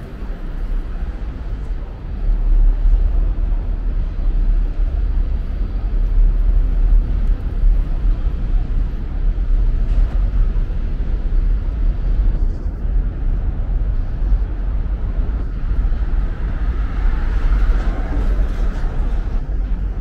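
Outdoor street ambience picked up on a walk. It is dominated by a loud, uneven low rumble of wind on a small handheld camera's microphone, which gets louder about two seconds in.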